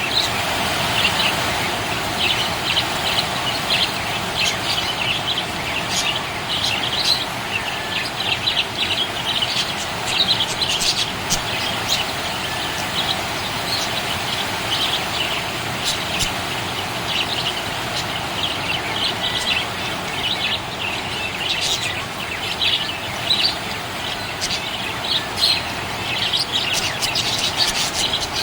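Budgerigar chirping and warbling continuously, a dense run of short, quick high chirps and trills with sharp clicks among them.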